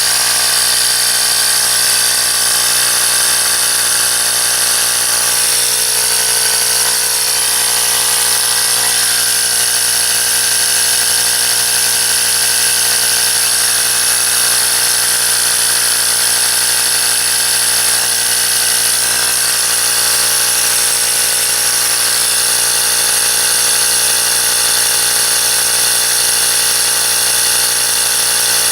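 Ryobi P737 18V cordless tyre inflator's compressor running steadily, pumping air into an underinflated car tyre.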